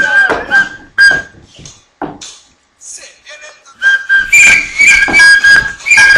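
Upbeat party dance music with a shrill whistle blowing long, repeated notes over it from about four seconds in; the sound cuts out briefly before the whistling starts.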